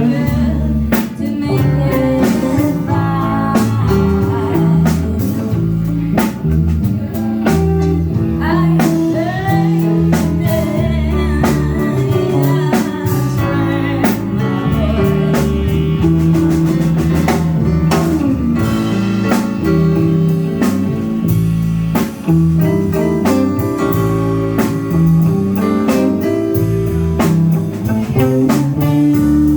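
Live blues band playing: electric guitar, drum kit and organ, with held organ and bass notes under a steady beat.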